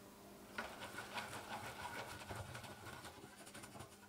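Silicone pastry brush greasing the inside of a metal springform cake tin with butter: a quick run of faint brushing and tapping strokes that starts about half a second in and trails off toward the end.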